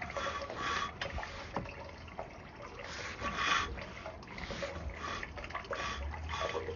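Water trickling and dripping in a sewer drain line as an inspection camera is pushed through it, with a few light knocks, about a second and a second and a half in.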